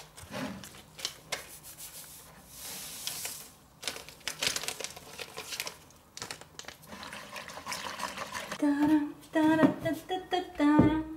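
Paper towels crinkling and rustling as rubber-gloved hands handle them, with scattered clicks and small knocks. About two and a half seconds before the end, a louder pitched, wavering sound takes over.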